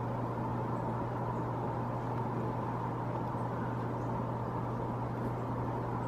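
Steady background hum: a low tone and a fainter higher tone over an even noise, unchanging, with no separate events.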